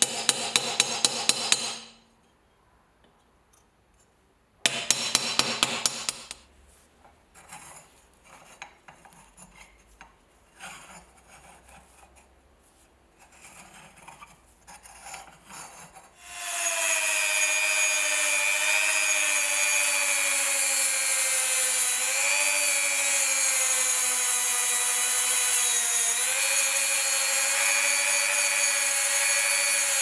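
Two quick runs of sharp taps, about six each, driving a wooden dowel to bend a brass belt buckle over a wood block in a vise; then faint handling of the buckle. From about halfway, a handheld rotary tool runs steadily with a high whine, its small wheel working the buckle's brass face, the pitch dipping briefly twice under load.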